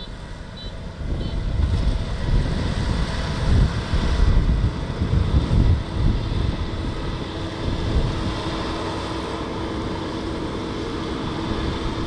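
Kubota DR6130SX combine harvester running while it cuts rice, a steady machine hum under heavy wind buffeting on the microphone. A few short high beeps sound in the first second or so.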